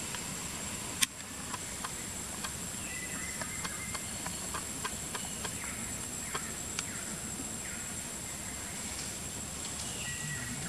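Outdoor forest ambience with a steady high insect drone. A sharp snap about a second in is followed by scattered light clicks and a few faint short high calls.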